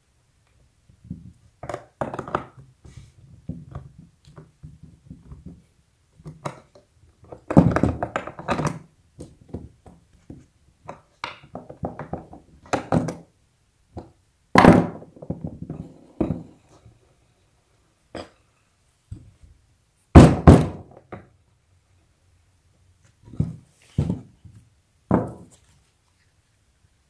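Irregular knocks, clicks and clatter of a skateboard being assembled by hand: a skate tool working the axle nut of a wheel on the truck, and wheels, tools and parts being set down and picked up on the table. A few louder knocks stand out, at about 8, 15 and 20 seconds in.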